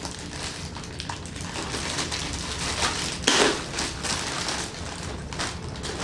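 Clear plastic bag crinkling and rustling as it is pulled off a robot vacuum cleaner, with a louder rustle about three seconds in.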